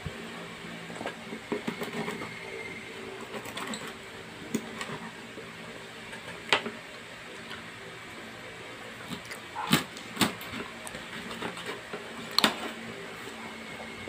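Kitchen knife slicing through a parrotfish on a wooden cutting board: irregular sharp knocks of the blade against the board, over a steady low hum.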